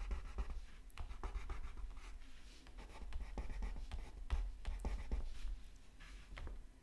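A peeled crayon scratching and rubbing across paper in many short, irregular strokes as trim is coloured in.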